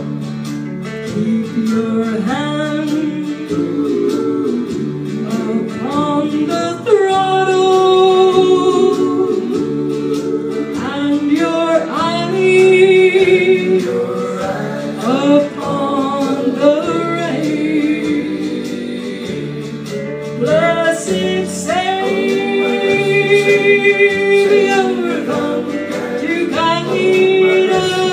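A woman singing a gospel song into a handheld microphone over instrumental accompaniment, with several long held notes.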